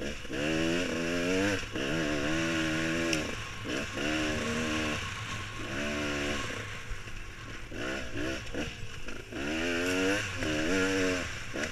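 Beta XTrainer two-stroke dirt bike engine revving up and down as it is ridden, its pitch rising and falling about once a second, over a steady hiss of wind noise.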